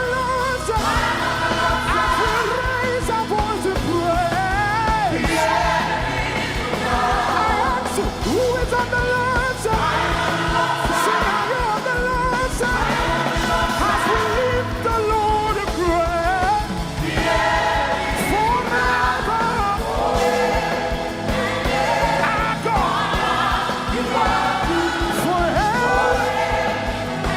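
Live gospel praise music: a lead singer sings over a full band with a steady beat.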